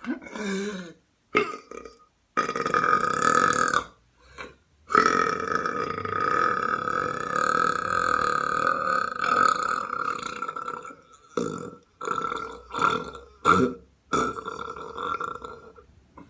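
A person belching over and over, each belch held on a steady pitch: short belches, then a long one of about six seconds in the middle, then a run of short ones and a last longer one near the end.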